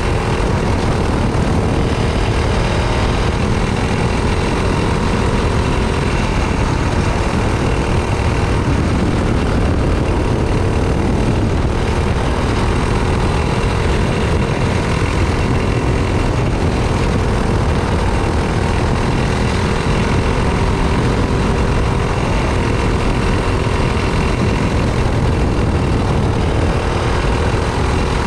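Racing kart engine running hard and continuously at a nearly steady pitch, heard from a camera mounted on the kart behind the driver, over a heavy low rumble.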